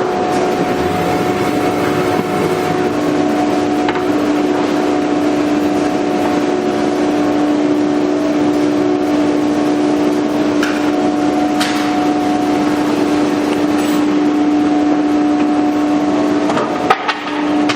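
CNC router running, a steady mechanical hum with a held whine over a broad hiss and a few faint clicks.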